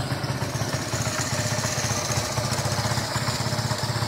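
Honda CD70's small single-cylinder four-stroke engine idling steadily, with a fast, even beat.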